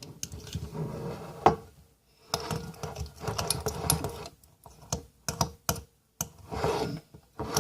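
Spoon stirring thickening glue-and-borax slime in a bowl, making irregular clicks and taps with short pauses.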